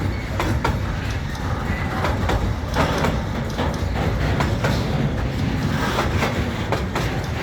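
Freight train rolling past as it departs, its wheels clicking over the rail joints again and again over a steady low rumble.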